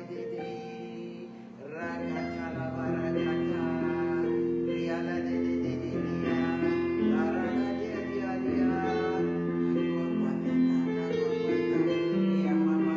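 Instrumental background music with a plucked, guitar-like instrument playing sustained notes over a low held bass, filling a pause for prayer.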